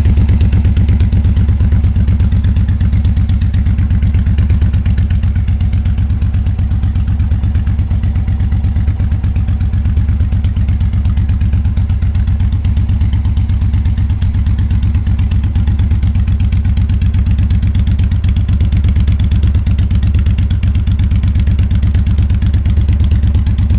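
1400 cc cruiser motorcycle with Cobra drag pipes, its engine idling steadily with an even, rapid exhaust beat.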